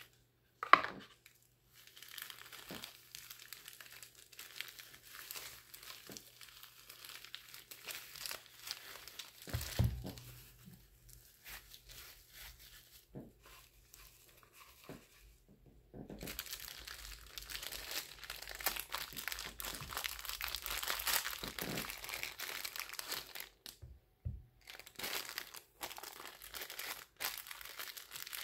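Bubble wrap and a clear plastic sleeve crinkling and rustling as they are handled and peeled off a folding knife. The crinkling grows denser and louder after about sixteen seconds. There is a sharp knock about a second in and a dull bump around ten seconds.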